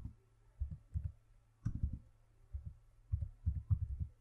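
Computer keyboard keystrokes: about a dozen irregular taps, heard mostly as dull low knocks with faint higher clicks, over a faint low hum.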